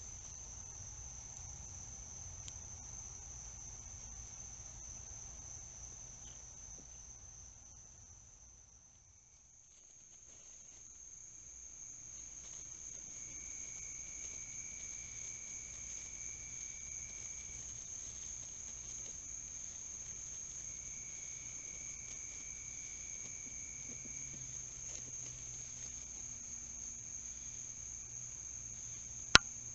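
Crickets singing: a steady, high, continuous chorus that fades down briefly about a third of the way in and comes back. A second, lower trill joins on and off in the middle. A single sharp click sounds near the end.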